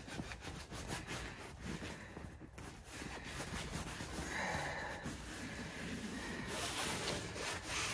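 Faint rustling and rubbing of hands pressing and smoothing a glued stove-jack patch onto nylon tent fabric, seating the adhesive bead.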